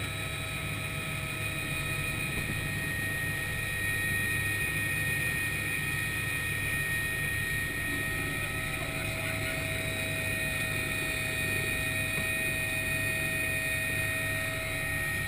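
Helicopter turbine and rotor heard from inside the cabin: a steady high whine over the rotor's low drone, growing a little louder about four seconds in as it lifts off from the snow.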